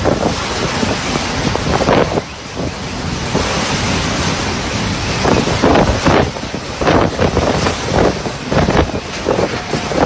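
Cyclone-force wind rushing and buffeting the phone's microphone in gusts, easing briefly about two seconds in and surging again repeatedly in the second half.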